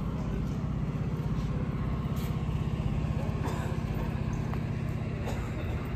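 Heavy truck's diesel engine running steadily, a low, even, fast-pulsing drone.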